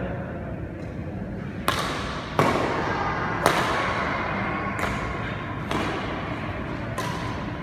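Badminton rally: racquets strike a shuttlecock about six times, roughly a second apart. Each sharp crack rings briefly in a large hall.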